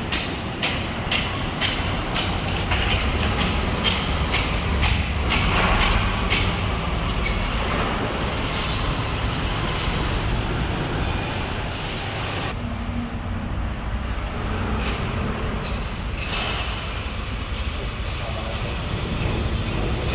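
Background music with a steady beat over a low rumble.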